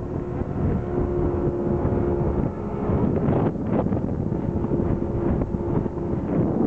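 Motorboat engine running steadily while the boat is under way, with wind buffeting the microphone.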